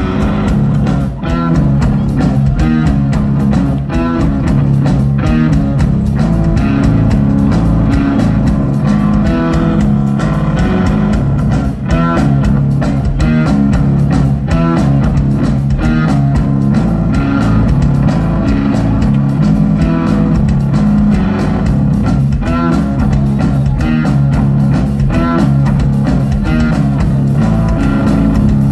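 Rock band playing live and loud: electric guitar, bass guitar and drum kit in a steady, continuous groove, with drum hits all the way through.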